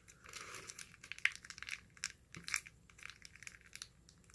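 Velveeta cheese sauce packet being squeezed out over macaroni, with irregular crinkling and crackling.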